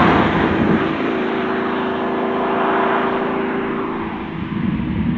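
Pagani Huayra's twin-turbo V12 driving away, loudest at the start, then a steady engine note that fades about four seconds in.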